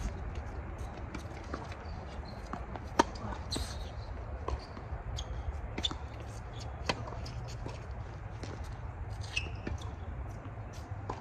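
Tennis rally on an outdoor hard court: sharp, irregular pops of racket strings hitting the ball and the ball bouncing, the loudest about three seconds in, over a steady low rumble.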